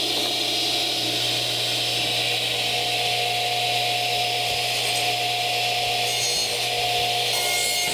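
Radial arm saw running with its blade cutting into a board, trimming a practice joint toward the line, a steady motor hum and whine under the cutting noise.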